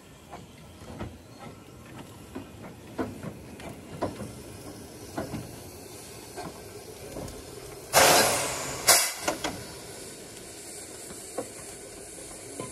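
Steam hissing from the 15-inch gauge steam locomotive River Esk, with a string of light clicks and knocks, then two loud bursts of steam hiss about eight and nine seconds in, the first lasting most of a second.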